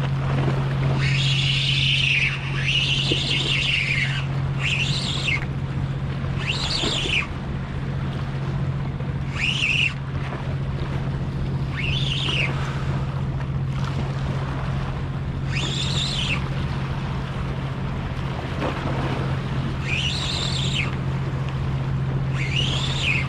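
Spinning reel whirring in repeated short bursts, each rising and then falling in pitch, as a hooked fish is played on a bent rod, over a steady low hum.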